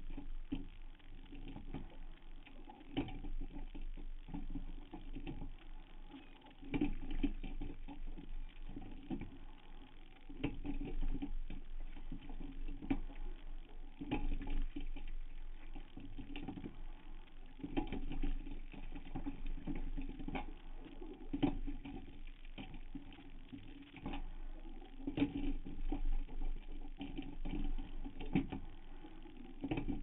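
Rowing strokes of a single racing scull: swells of water noise with knocks, repeating about every three and a half seconds over a steady low hum.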